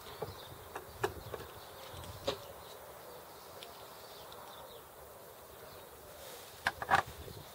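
Small steel parts of a Sachs Super 7 bicycle hub clicking as a screwdriver works on one of them, with scattered light clicks and a quick cluster of sharper, louder clicks near the end.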